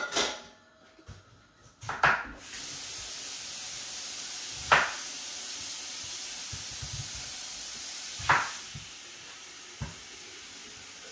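A steady hiss in a kitchen starts about two seconds in and carries on, easing slightly after about eight seconds. Over it come a few sharp knocks of kitchenware.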